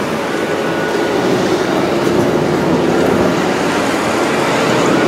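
Loud, steady rumble of aircraft engines running on an airport apron.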